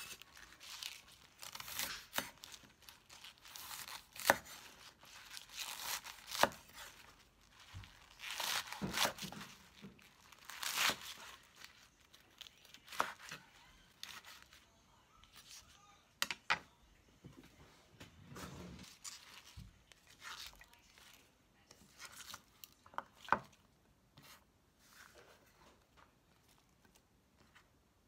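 A cleaver chopping through Chinese broccoli (gai lan) stems and leaves on a bamboo cutting board: irregular crisp crunches and leaf rustling, with several sharp knocks of the blade on the board. It gets quieter over the last few seconds.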